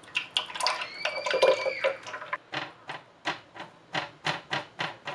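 Liquid rice-flour batter pouring through a wire-mesh sieve into a tall plastic jug. After about two seconds this gives way to a spoon scraping and pressing the lumps against the sieve mesh, about four strokes a second.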